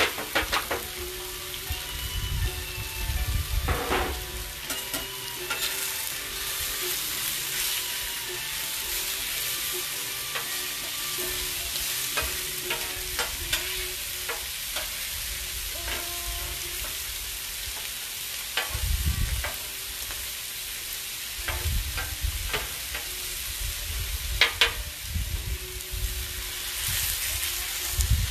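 Cubed, marinated meat sizzling steadily on a Blackstone 28-inch flat-top griddle, with a metal spatula clicking and scraping on the griddle top now and then as the meat is stirred. A few low rumbles come in partway through and near the end.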